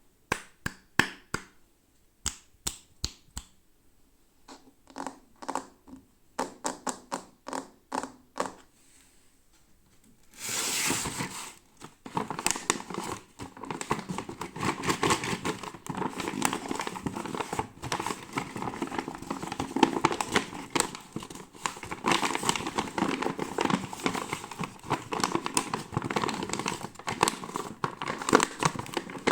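Toy packaging being handled close up: separate sharp taps and clicks for about the first ten seconds, then continuous crinkling and crackling as the wrapping is crumpled and torn open.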